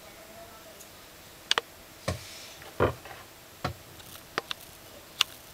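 Leopard gecko chewing a silkworm: a string of short, sharp clicks and wet smacks at uneven intervals, about eight in all, a few of them duller knocks.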